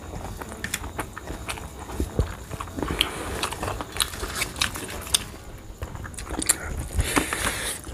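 A person chewing mouthfuls of rice and cabbage curry while fingers mix rice on a steel plate: many short, irregular clicks.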